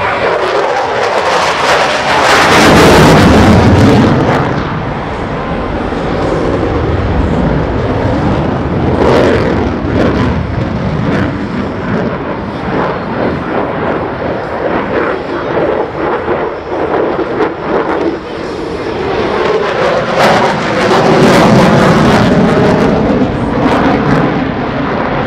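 F-16 jet flying a low display with its afterburning turbofan engine running, a loud steady rush of jet noise. It swells loudest about three seconds in and again about twenty seconds in as the jet passes and turns.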